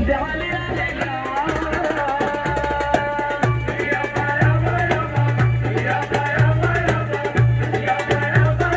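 Background music with a steady drum beat, a pulsing bass line and held melodic notes.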